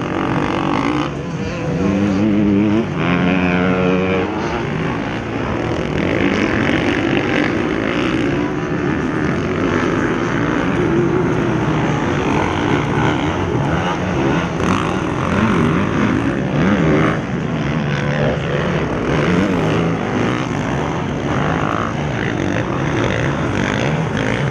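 Motocross bike engines racing around a dirt track, revving up and down as riders work through the course, with a clear rising rev a few seconds in.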